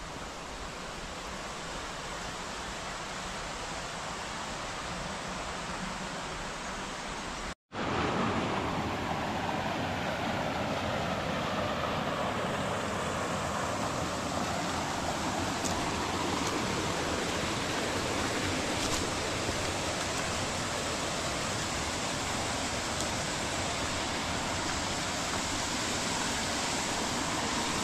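Rushing water of a mountain stream with small cascades, a steady hiss. It cuts out for an instant about eight seconds in and comes back louder.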